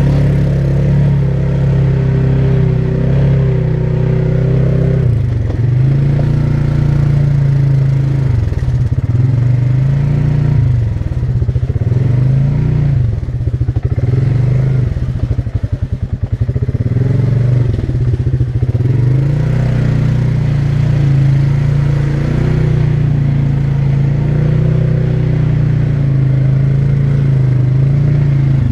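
ATV engine running while riding, holding a steady pitch, then dipping and rising again several times through the middle as the throttle is eased off and opened.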